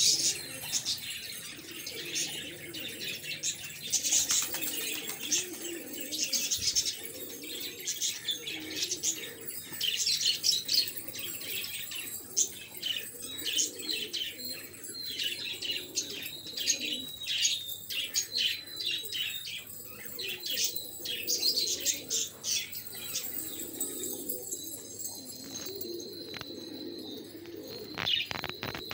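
Domestic pigeons cooing continuously, overlaid by many short, high chirping calls.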